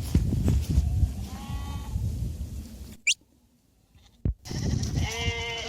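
Swaledale sheep bleating: a short bleat about a second and a half in, then a louder, longer bleat near the end. The sound drops out for about a second in between.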